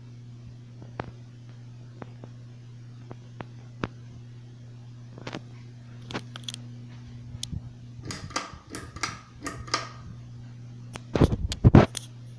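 Progress Lighting AirPro Builder ceiling fan motor running with a steady low hum. Scattered clicks, then a cluster of clicks and rattles, then a few loud thumps near the end.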